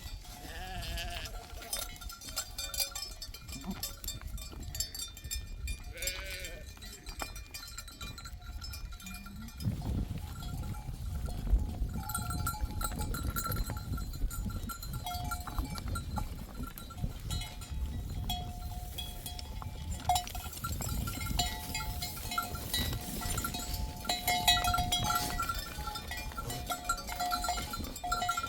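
A flock of sheep, with a few bleats and the clinking and ringing of livestock bells. A low rumble sets in about a third of the way through.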